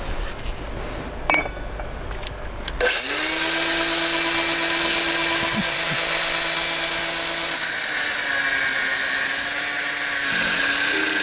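Handheld electric power tool cutting a chimney flue: a couple of clicks, then about three seconds in the motor starts, spins up to a steady whine and cuts, the hiss of the cut getting harsher from about eight seconds. Music comes in near the end.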